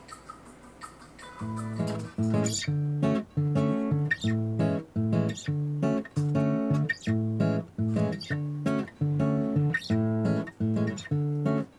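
Background music: acoustic guitar strumming chords in a steady rhythm, coming in about a second and a half in after a quiet start.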